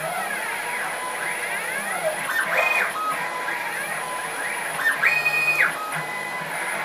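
Stepper motors of a 6040 CNC router whining as the machine traces curved lines with a pencil, the pitch sweeping up and down as the axes speed up and slow down along the curves. Twice, about two and a half and five seconds in, a faster straight move gives a higher whine that climbs, holds and drops.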